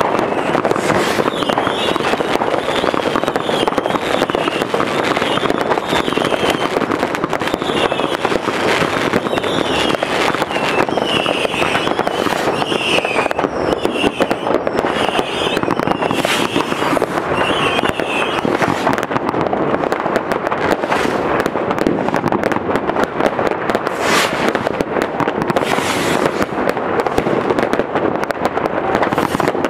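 Citywide New Year's fireworks: a dense, continuous din of many rockets and firecrackers going off at once, crackling with sharper single bangs throughout.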